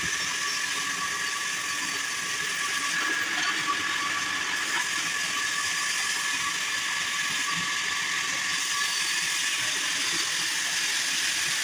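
Log band sawmill running steadily: an even, high-pitched rushing noise with a faint steady whine, with no separate knocks or changes in pitch.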